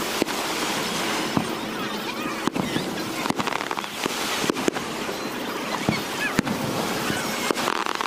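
Aerial fireworks shells bursting: about ten sharp bangs at uneven intervals, over a steady rushing background.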